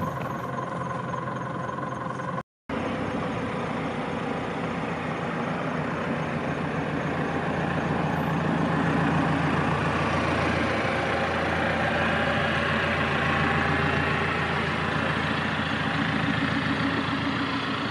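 Vehicle engines idling steadily, a low, even hum. The sound cuts out completely for a moment about two and a half seconds in.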